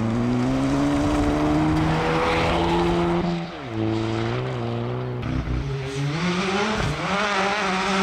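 Suzuki Swift rally car's engine revving hard under acceleration. Its pitch climbs, drops sharply about three and a half seconds in, then climbs again near the end.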